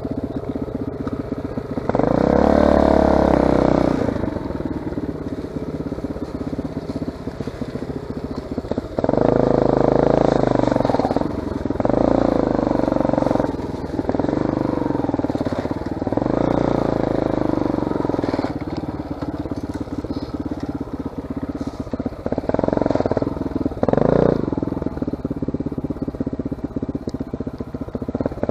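Motorcycle engine running under way on a dirt trail, repeatedly revving up and easing off. The strongest surges come about two seconds in and again around nine to thirteen seconds.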